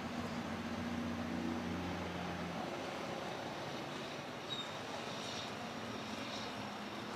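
Distant engine drone, a low hum that fades away about two and a half seconds in, leaving a steady background rumble. A brief faint high chirp about four and a half seconds in.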